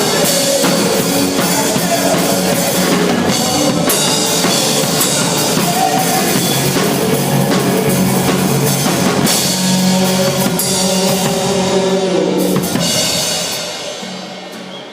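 Loud rock-style music with a full drum kit, bass drum and snare driving a steady beat, dying away in the last couple of seconds.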